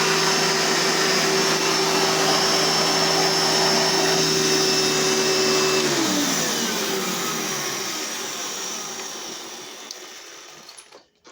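Hoover Sprint vacuum cleaner running steadily, then switched off about six seconds in, its motor whine falling in pitch and fading as it winds down. Its motor fan makes a slicing noise, which the owner puts down to a fan that is probably dirty.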